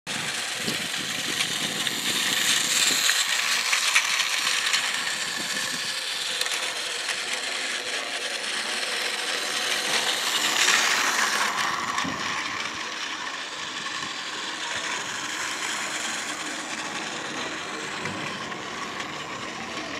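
Plarail toy train's small battery motor whirring, with its plastic wheels rattling along the plastic track. It grows louder twice, a few seconds in and again about halfway through, then runs on more quietly.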